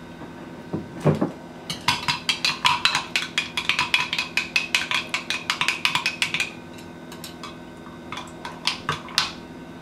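Metal spoon stirring a drink in a glass mason-jar mug, clinking against the glass in a fast run of ringing taps for several seconds. A knock comes about a second in, and a few slower taps come near the end.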